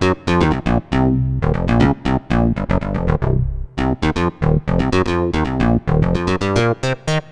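ASM Hydrasynth digital wave-morphing synthesizer playing a factory preset: a quick run of short, bright pitched notes over a lower sustained tone, with two brief lulls where the notes thin out.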